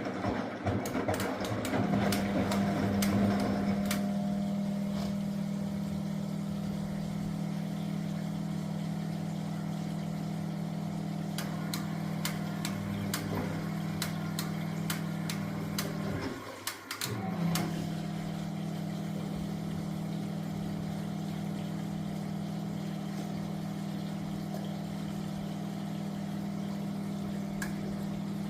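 Miele W423 washing machine running with a steady motor hum and scattered clicks and taps; a little over halfway through the motor stops for about a second, then starts again.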